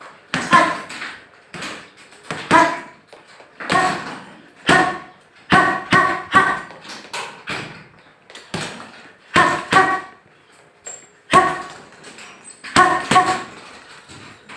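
Boxing gloves hitting a hanging heavy punching bag: about twenty sharp punches at an uneven pace, some single and some in quick pairs of two or three.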